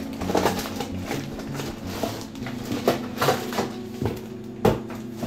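Cardboard box and packaging being handled and opened: scattered rustles and light knocks, with a sharper knock just before the end.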